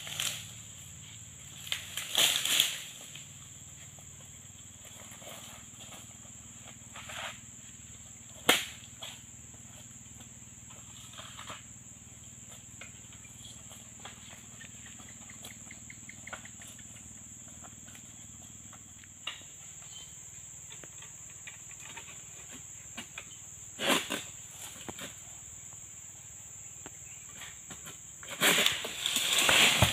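Steady, high-pitched drone of insects, with scattered short rustles and knocks, the loudest cluster near the end.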